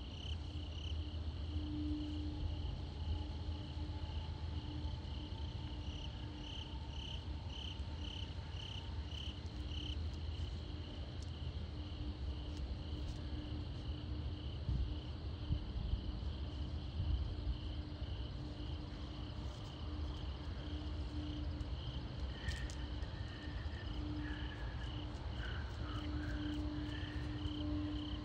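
Night insects calling: a steady high chirring with a pulsing call repeating about twice a second. Under it runs a faint steady low hum, and the loudest sound is a low rumble of wind on the microphone.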